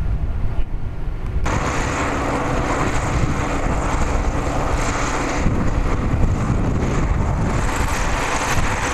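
Steady engine rumble with a loud rushing noise that comes in about a second and a half in.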